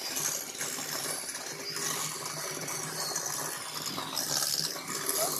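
Electric hand mixer running steadily, its beaters churning the creamed butter, sugar and honey for a pound cake batter, with a steady low motor hum under the churning.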